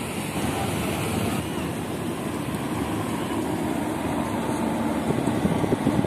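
Wind buffeting the microphone over the wash of ocean surf, growing louder toward the end.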